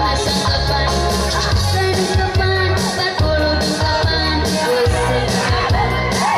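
Live music from an electronic keyboard with a steady beat and bass, with a woman singing into a microphone through the PA.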